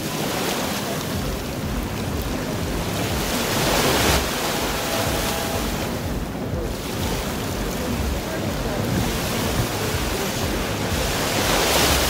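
Sea surf washing onto a beach, swelling and falling every few seconds, with wind buffeting the microphone as a low rumble.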